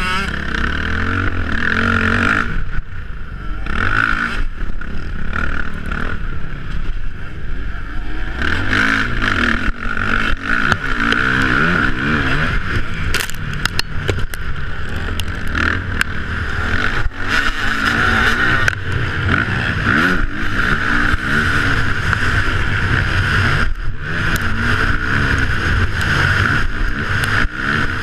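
Motocross bike's engine, heard from a camera mounted on the bike, running hard and revving up and down through gear changes and brief throttle-offs.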